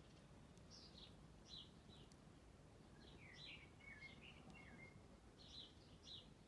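Faint bird chirping: a run of short, high chirps, most sweeping downward, with a few flat whistled notes, over low background hiss.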